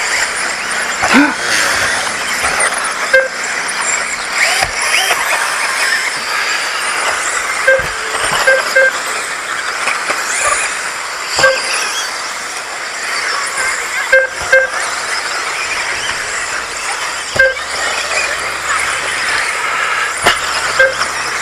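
Several radio-controlled racing buggies running together on a track, their motors whining and rising and falling in pitch as they accelerate and brake. Short electronic beeps come every few seconds, some in quick pairs, typical of a lap-counting system as cars cross the line. Occasional sharp clicks are heard as well.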